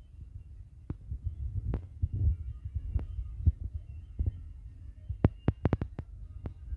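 Dancers' shoes knocking and stamping on a wooden stage floor in irregular sharp strikes, with a quick run of stamps near the end, over a low throbbing rumble.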